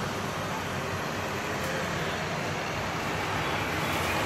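Steady road traffic noise, an even rumble with no distinct events.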